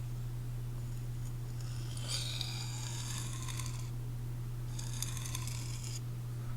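Magnacut steel knife edge drawn twice across a sharpening stone, two slow scraping strokes about two seconds in and again near the end, while forming a micro bevel and working the burr. A steady low hum runs underneath.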